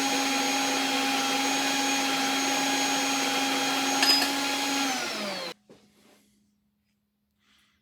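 Electric motor of a workshop machine running steadily at a constant whine, with a short click about four seconds in; it is then switched off, its pitch falling as it spins down, and it stops about five and a half seconds in.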